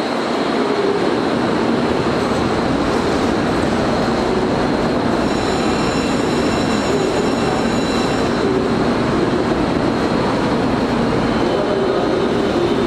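Steady, loud rumble of electric trains in an enclosed station, with a cluster of high steady tones sounding for about three seconds midway.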